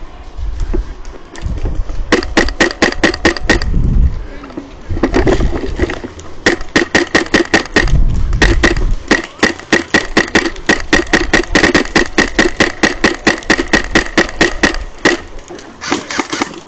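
Airsoft rifle fire in long rapid bursts, about six shots a second. The firing runs almost without a break through the second half.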